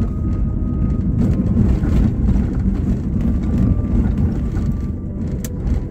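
Car driving slowly over a rough road, heard from inside the cabin: a steady low rumble of engine and road noise.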